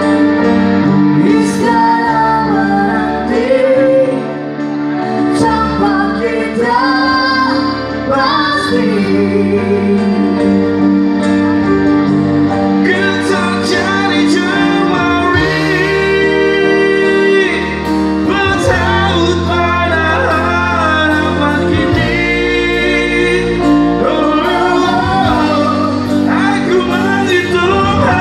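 A woman and a man singing a rock duet live, backed by an amplified band of electric guitars, bass, drums and keyboard, with sustained chords under the vocal lines.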